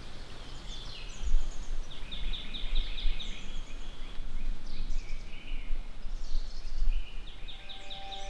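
Songbirds singing outdoors: a repeated trill of rapid, evenly spaced high notes recurs every few seconds among other chirps. An uneven low rumble runs underneath.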